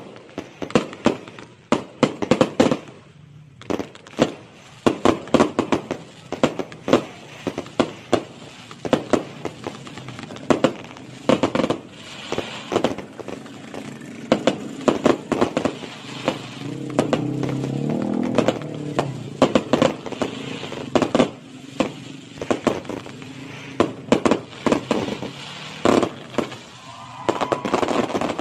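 Fireworks going off in rapid, irregular volleys of sharp bangs and crackles, with a stretch of steadier continuous noise a little past the middle.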